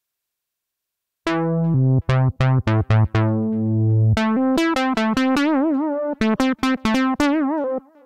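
u-he Zebra2 software synthesizer lead preset playing a phrase of short, sharp-attacked notes, starting about a second in. Midway the held notes take on a wavering vibrato from the mod wheel.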